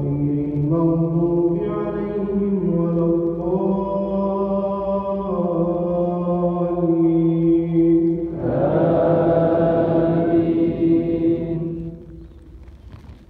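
An imam's chanted du'a in Arabic, sung in long, held melodic phrases. About eight and a half seconds in, many congregation voices join in a sustained response for a few seconds. The chanting then falls to a faint murmur near the end.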